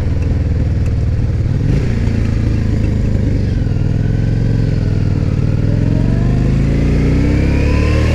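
Yamaha DragStar 400's V-twin engine running under way, its note climbing steadily over the second half as the bike accelerates.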